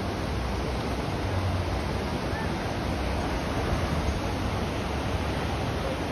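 Steady rushing of river water, with a low uneven rumble underneath.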